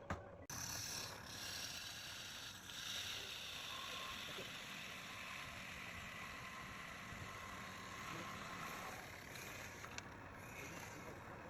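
Wood lathe running steadily, with the hiss of a turning tool cutting wood. It drops out briefly about half a second in.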